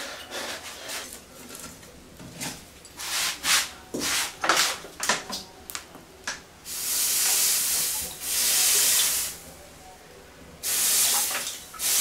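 Water from a hand-held bottle hitting the red-hot joint of freshly forged steel tongs and hissing off as steam, in three long stretches of about a second each in the second half. Before that, a few sharp metal clinks as the tongs are handled.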